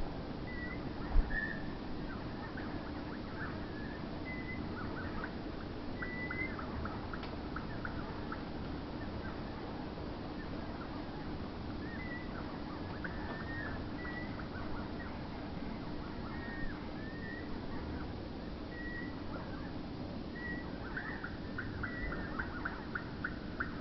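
Eurasian blackbird nestlings begging: short high chirps come every second or so, and near the end there is a quick run of rapid calls. A steady low hum runs underneath.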